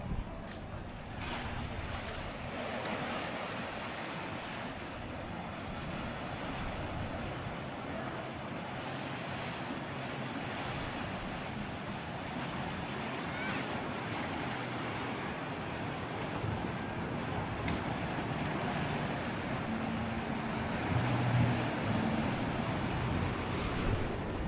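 Sea surf washing steadily in a continuous rush of waves, with a brief low hum joining in near the end.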